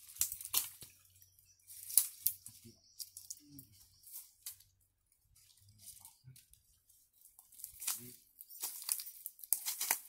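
Dry leaf litter crunching and rustling underfoot in scattered short bursts, with a quiet stretch about halfway through.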